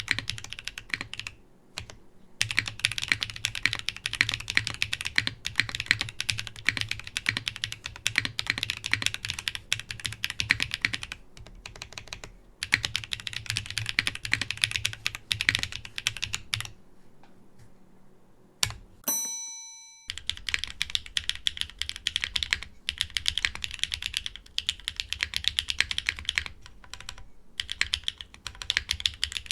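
Typing on an Ophanim custom mechanical keyboard: fast runs of keystroke clicks broken by short pauses. About two-thirds of the way through, a single bell-like chime rings and dies away.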